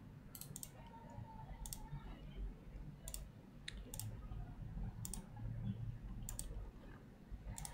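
Computer mouse clicking faintly, a single click or a quick pair every second or so, as lines are picked and placed while drawing in software.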